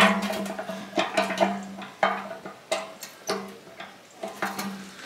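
Metal jerrycan knocking and clanking several times as it is handled and its spout closed after refuelling, over a steady low tone.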